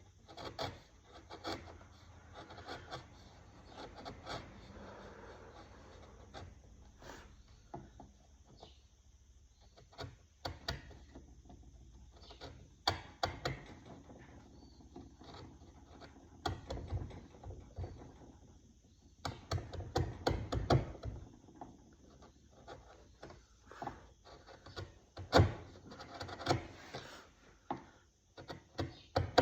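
Wood being carved by hand: irregular scraping and rubbing strokes on the wood with scattered sharp clicks and knocks, busiest about two-thirds of the way in.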